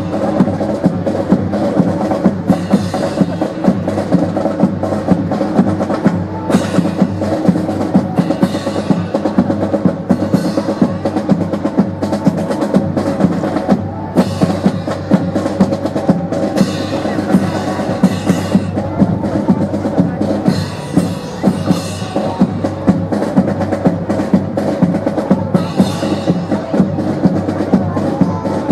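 Music with drums keeping a steady beat over sustained low tones, accompanying a military drill display.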